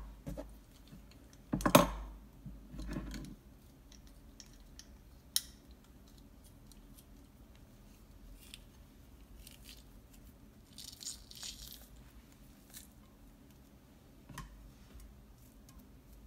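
Scattered small clicks and knocks with brief crackly rustles, from garlic cloves being peeled and loaded into a metal garlic press. A louder knock comes about two seconds in.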